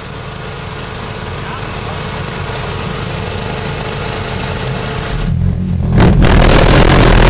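A steady mechanical drone slowly builds, then about six seconds in the snowmobile's valved pulsejet engine lights with a burst of flame from the tailpipe and runs with a much louder, steady noise. The engine is running with some of its inlet valves blocked off, an attempt to cure problems like those the team had with its first engine.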